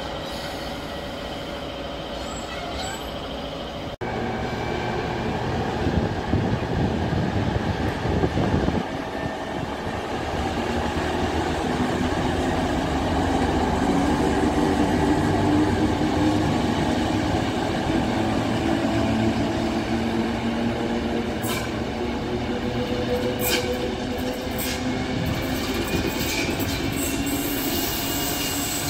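Ludmilla-type six-axle diesel locomotive running light past, its engine drone swelling to its loudest about halfway and then easing as it draws away. A thin wheel squeal rises near the end.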